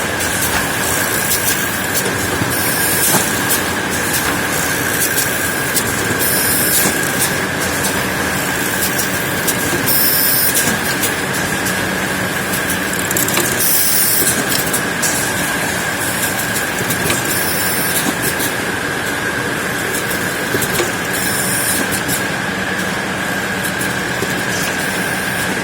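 Leno mesh bag cutting and sewing machine running steadily: a continuous mechanical clatter with a steady high whine, and a short hissing burst about every three and a half seconds.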